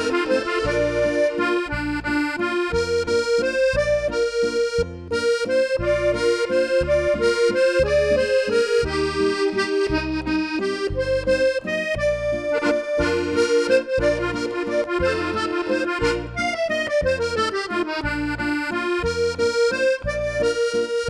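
Accordion playing a classic French tune: a melody over bass notes on a steady beat, with a descending run of notes about sixteen seconds in.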